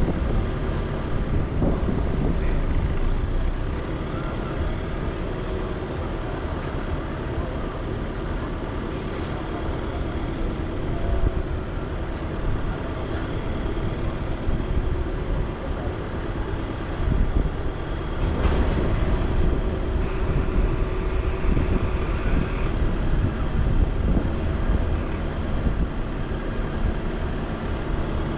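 A car driving, its engine and tyre noise a steady low rumble.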